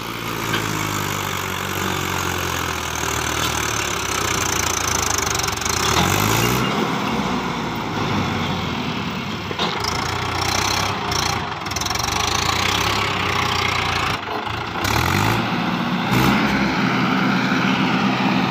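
Swaraj 843 XM tractor's three-cylinder diesel engine running under load as it tries to pull its loaded trailer out of wet sand and mud. It revs up twice, about six seconds in and again near fifteen seconds.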